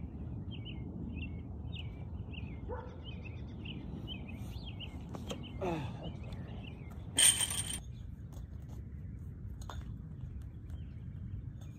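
Small birds chirping, then a short falling grunt as the throwing weight is heaved into the air. About a second later the loudest sound: a sharp metallic clank with a brief ring, the weight landing.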